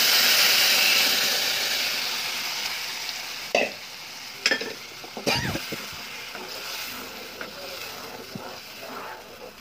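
Strained tomato puree hitting hot oil with fried garlic and spices in a pan, sizzling hard at first and then slowly dying down as it is stirred. A utensil knocks against the pan three times about halfway through.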